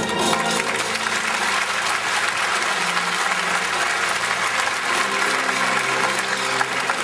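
Circus audience applauding, dense steady clapping, with music playing faintly underneath.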